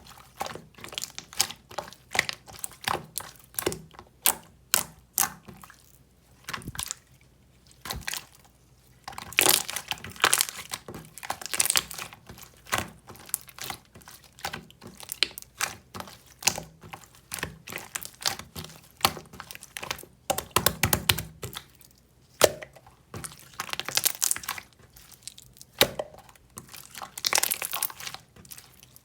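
Irregular run of sharp clicks, taps and crinkling sounds, several a second, growing louder in clusters about ten seconds in and again near the end.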